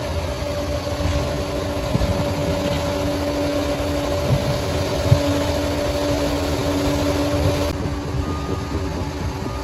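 Bulldozer engine running steadily, with a low rumble and a steady hum. The sound changes about three quarters of the way through.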